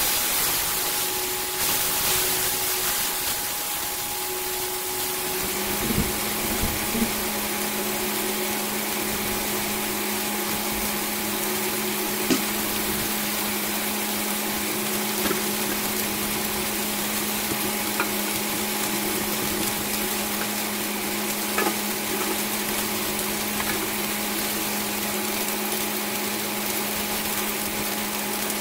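Bacon strips sizzling in a stainless steel frying pan: a steady hiss with a few sharp pops of spattering fat. A steady low hum joins about five seconds in.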